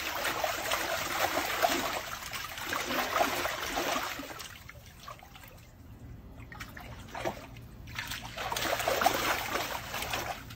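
Water splashing and sloshing as a dog paws and wades in a shallow plastic paddling pool. The splashing eases off for a few seconds midway, then picks up again near the end.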